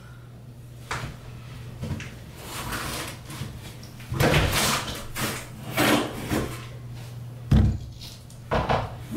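Aluminium-framed glass shower door and frame panels being lifted out and handled: a string of knocks, clatters and rattles, with the heaviest thump near the end.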